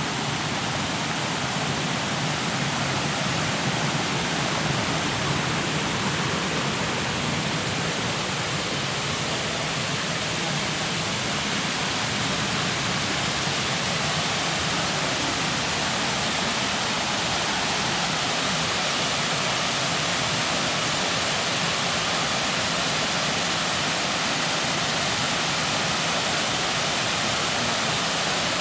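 Waterfall: water falling and rushing as a steady, even wash of noise that does not change.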